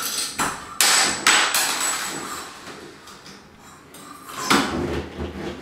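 Sharp knocks and clanks of the shower curtain rod against its wall brackets as it is adjusted and straightened: three quick knocks in the first second and a half, one ringing briefly, then a duller knock about four and a half seconds in.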